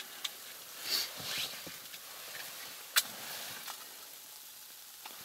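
Matches being struck on a matchbox: a scratch and brief flaring hiss about a second in, then a single sharp click about three seconds in, over a faint hiss.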